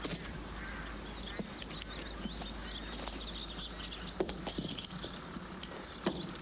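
Small birds chirping and twittering, with a quick trill of repeated notes about five seconds in, over a steady low hum. A few sharp knocks come partway through and near the end.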